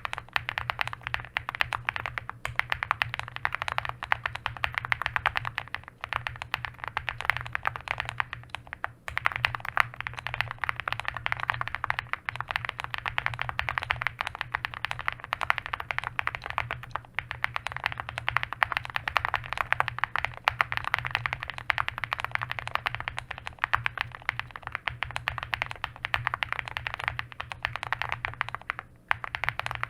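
Fast continuous typing on an Owlab Spring mechanical keyboard with Tecsee Singularity switches on an FR4 plate, full foam and Durock V2 stabilizers: a dense stream of key strokes with brief pauses now and then. The keycaps are stainless steel alphas over doubleshot plastic.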